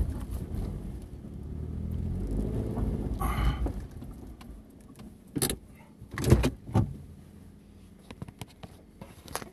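Car cabin noise from engine and tyres fades away as the car slows and stops about four seconds in. It is followed by three sharp clicks and knocks from inside the car, then a few faint small ticks.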